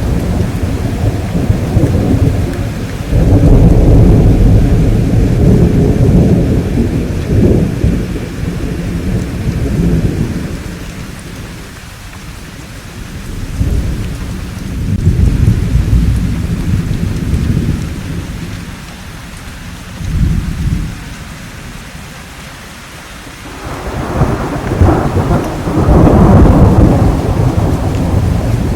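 Thunder rumbling in several long rolls over steady rain, fading down between them; the loudest, sharper peal builds near the end.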